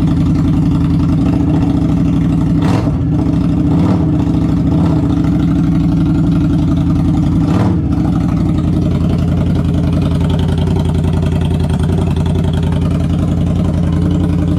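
Indian Scout Bobber's V-twin engine running steadily through short GP Shorty exhaust tips, loud, with two brief sharp cracks about three and eight seconds in.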